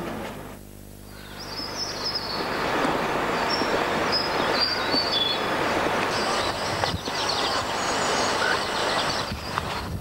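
Outdoor ambience: a steady rushing noise, with short high bird chirps over it.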